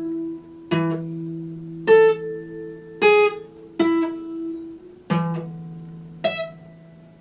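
Epiphone acoustic guitar played slowly, plucked notes and chords about once a second, each left to ring out and fade before the next.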